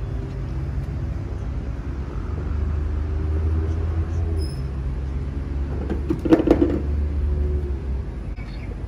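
A steady low mechanical rumble with a pitched hum, like a running motor, with a brief louder clatter about six seconds in.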